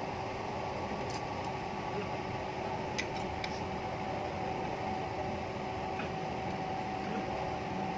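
Steady machine hum with a few faint metallic clicks as an adjustable wrench is fitted and worked against the rusted steel barrel of a pneumatic chipping hammer.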